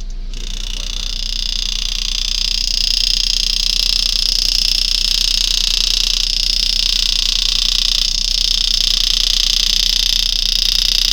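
Power engraving handpiece running as the graver cuts a spiral into a coin: a steady high-pitched buzz that builds over the first few seconds and then holds. A low steady hum sits underneath.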